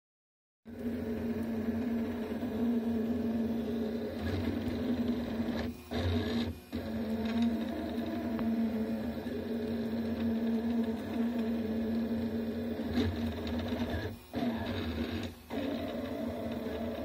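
Delta 3D printer printing: its stepper motors whine and its hotend cooling fan hums steadily as the effector moves, with a few brief dips where the motion pauses or changes. The sound starts after a short silence.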